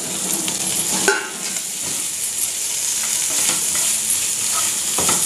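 Pepper chicken sizzling in a nonstick frying pan as a wooden spatula stirs it, scraping across the pan, with one sharper stroke about a second in.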